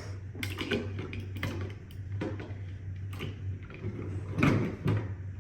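Irregular clicks and light clatter of plastic parts and small tools being handled as a Roomba is taken apart, over a steady low hum.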